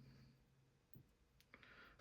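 Near silence with a couple of faint small clicks, about a second in and again half a second later: small lock parts being handled while the springs are removed from a pin-tumbler lock body.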